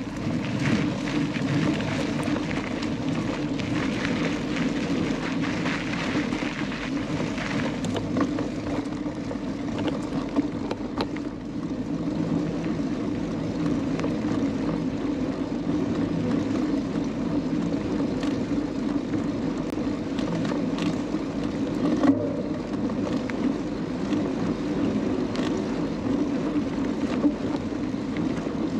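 Mountain bike ridden along a trail: steady rumble of knobbly tyres rolling over dirt, with chain and frame rattle and wind on the microphone. The higher rattle and hiss ease about ten seconds in as the trail turns onto a sand road, and there is one sharp knock near the end.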